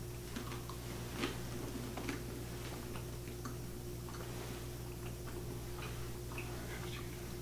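Scattered small clicks and taps of altar vessels being handled (paten and chalice), the sharpest about a second in, over a steady low hum in a small room.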